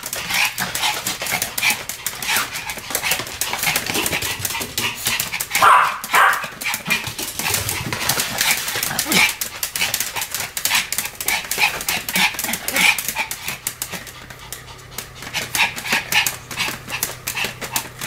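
Excited Pomeranian panting and scrabbling with dense rapid clicks as it spins around its playpen, with a loud bark about six seconds in and a few softer yips later.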